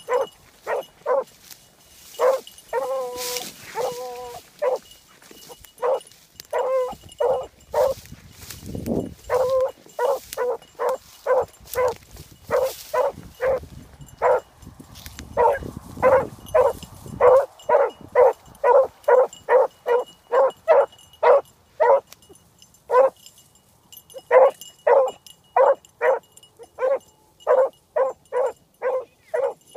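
Beagle baying while trailing a scent through grass: a long run of short, ringing barks at about two a second, broken by a few longer drawn-out bawls a few seconds in and once more around seven seconds.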